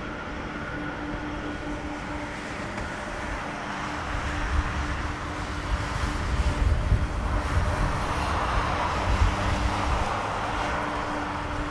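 Boeing 787 jet engines at takeoff power, a broad rumble that swells about four seconds in and is loudest around eight to nine seconds in as the airliner rolls and climbs out.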